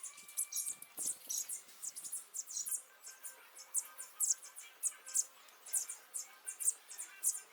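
Rapid high-pitched chirping, a few short chirps a second in an uneven pattern, over faint background music.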